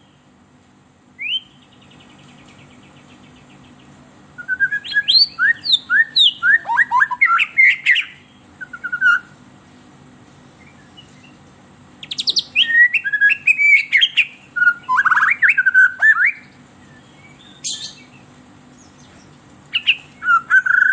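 White-rumped shama (murai batu) singing loud bursts of rapid, varied whistled phrases and glides. There is a short rising note about a second in, then two long bouts of song with a pause between them, and the song starts up again near the end. A low steady hum runs underneath.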